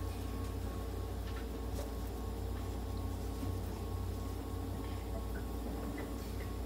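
Steady low hum of a nebulizer running, misting the cage for a cat's inhalation therapy, with a few faint small clicks.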